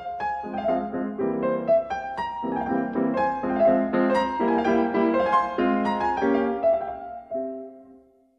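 Background piano music: a run of quick notes that dies away near the end.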